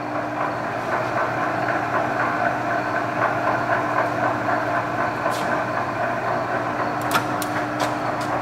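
Kingston HJ-1700 gear-head engine lathe running steadily at low speed, about 75 RPM: an even mechanical hum with a constant tone through it. A few sharp clicks come near the end.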